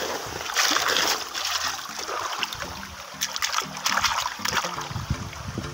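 Wet gravel scraped by hand, then a small plastic toy swished through shallow stream water, splashing in several bursts.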